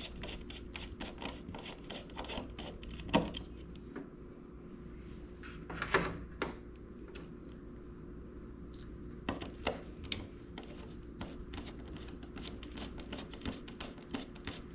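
Irregular small clicks and knocks of hands working cable terminals and hardware onto a fuse box, with louder knocks about three and six seconds in and a few more near ten seconds, over a faint steady hum.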